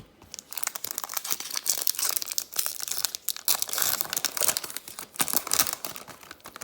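Crinkly plastic trading-card pack wrapper being torn open and crumpled, a dense run of sharp crackles.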